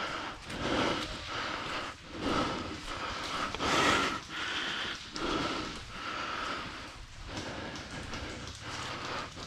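A person moving on foot in a ghillie suit: footsteps on soft ground and rustling of the suit and foliage, mixed with breathing, in uneven bursts every half second to a second, the loudest about four seconds in.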